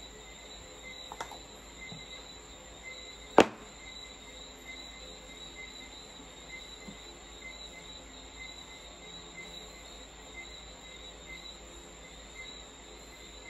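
Insects chirping steadily with a continuous high trill and a faint regular pulse, and a single sharp tap about three and a half seconds in, with a fainter one about a second in.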